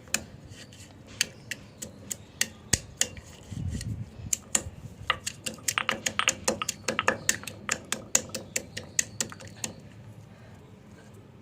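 Stone pestle knocking in a small stone mortar, irregular sharp knocks a few per second, crushing Indian borage leaves, tulsi and black peppercorns into a wet paste. The knocking stops near the end.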